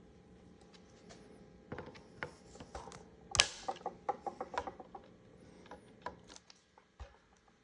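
Scattered clicks, taps and light rattles of a bolt-action rifle and tools being handled during reassembly after a trigger replacement. The loudest is one sharp click about three and a half seconds in, followed by a quick run of small ticks.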